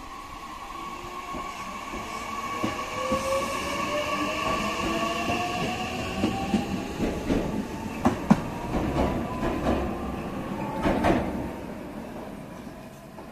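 JR West 227 series electric train pulling out of the station. Its motor whine rises steadily in pitch as it gathers speed, then a quick run of wheel clicks over the rail joints comes as the cars go by, and the sound fades as the train draws away.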